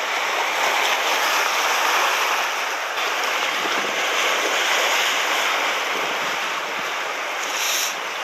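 Sea surf breaking and washing over shore rocks, a steady rushing noise.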